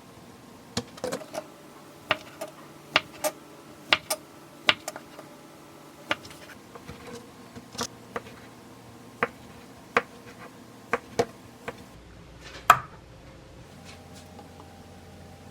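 Kitchen utensils tapping and clicking during food preparation, in sharp separate knocks at an uneven pace of about one to two a second, with one louder knock a little past the middle.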